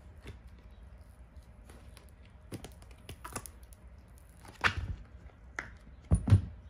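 A cured epoxy resin casting being demolded from a silicone mold and handled: scattered small clicks and rustles, a sharp knock just after halfway, and two heavier thumps close together near the end.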